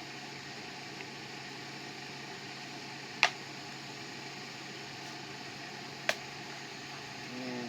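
Two sharp plastic clicks, a loud one about three seconds in and a lighter one about three seconds later, as parts of a WORX electric string trimmer head snap into place on the motor housing. A steady fan-like hiss runs underneath.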